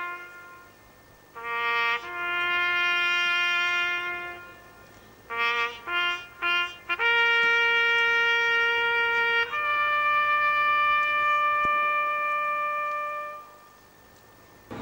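A lone brass instrument, bugle or trumpet, plays a slow solemn call of long held notes with a quick run of short notes in the middle. The last and highest note is held for about four seconds and then fades away.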